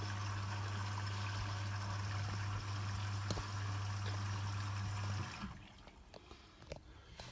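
Hotpoint WMFUG 942 washing machine filling with water for the pre-wash: water rushing in with a steady low hum, both cutting off suddenly about five seconds in as the fill stops. A few faint clicks follow.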